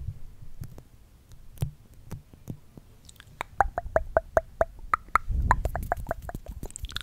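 Mouth sounds right at a microphone: after a few scattered soft clicks, a fast run of tongue clicks, about six a second, begins a few seconds in and carries on to the end, with a low rumble on the microphone in the last couple of seconds.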